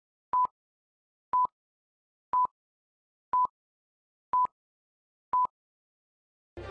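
Film-leader countdown beeps: a short, steady mid-pitched beep once a second, six times, each starting and stopping with a slight click. Music begins swelling in right at the end.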